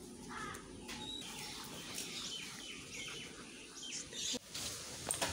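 Small birds chirping: a string of short, high chirps repeating for a few seconds, over a faint low outdoor rumble.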